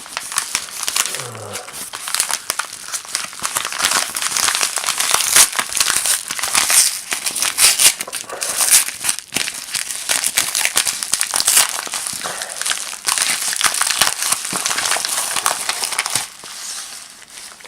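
Packaging being crinkled, rustled and torn open by hand as a mailed parcel is unwrapped, with a steady run of sharp crackles throughout.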